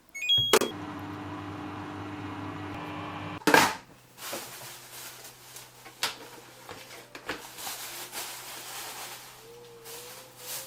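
Samsung Eco Bubble washing machine starting its cycle. A few short beeps are followed by a steady hum that lasts about three seconds and ends in a loud clunk, then a low steady hum with scattered clicks.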